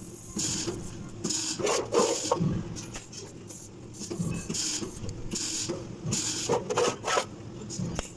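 Irregular strokes of scraping and rubbing, coming in uneven bursts with short gaps.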